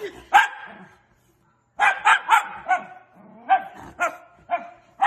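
Miniature schnauzer barking sharply, about nine barks: one single bark, then a quick run of four, then several more spaced about half a second apart.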